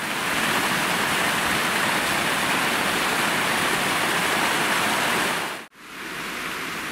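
Small waterfall running down a rocky bank: a steady rush of splashing water. It cuts off sharply near the end, leaving a fainter steady hiss.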